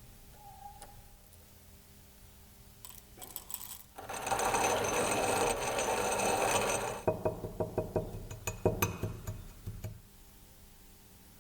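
Hand coffee grinder in use: a dense grinding rattle starts about four seconds in and lasts about three seconds, then gives way to a run of sharp clicks that stops about ten seconds in.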